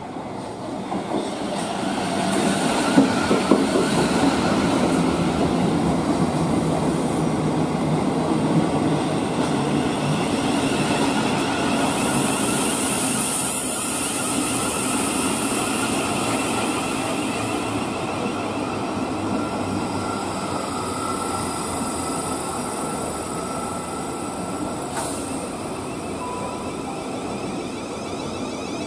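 A South Western Railway electric multiple unit running alongside the platform at close range: a steady rumble of wheels on the rails that builds over the first couple of seconds. A high hiss rises midway, and a faint thin whine sounds in the later part.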